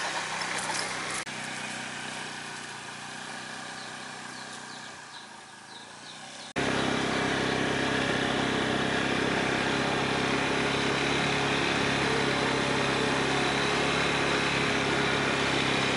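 Honda motor scooter riding off and fading away, then, after an abrupt cut about six seconds in, its engine running steadily at close range while under way, a constant low engine note under an even hiss.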